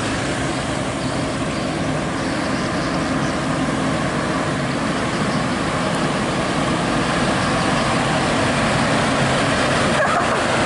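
Heavy Scania tractor unit's diesel engine pulling a roughly 30-ton articulated dump truck on a lowboy trailer at low speed, a steady engine drone that grows gradually louder as the truck comes closer.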